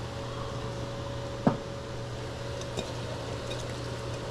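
Steady mechanical hum of a kitchen fan or appliance, with one sharp knock about a second and a half in and a fainter click near three seconds.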